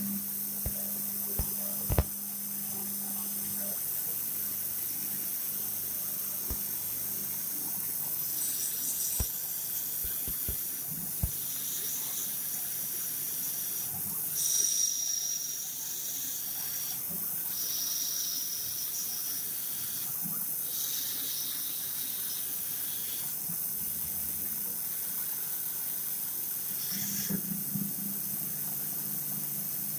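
CNC gang-tool lathe machining 304 stainless steel, under a steady hiss. There is a low hum and a few sharp clicks in the first seconds, and high-pitched whines come and go through the middle as the machine cuts.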